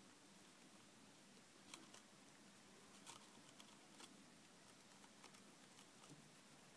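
Faint, irregular little crunching clicks of a Djungarian hamster nibbling lettuce, over a quiet steady hiss.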